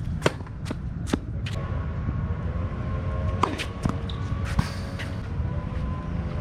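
Tennis ball impacts: four quick thuds about half a second apart in the first second and a half, then a few more sharp hits a couple of seconds later, over a steady low background rumble.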